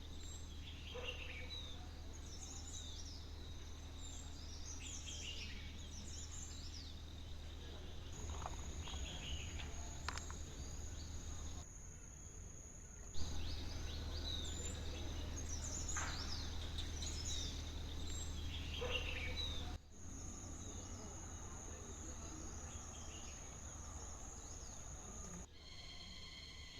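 Forest ambience: many birds chirping over a steady high-pitched insect drone, with a low rumble underneath. The sound changes abruptly several times, as between cut-together clips.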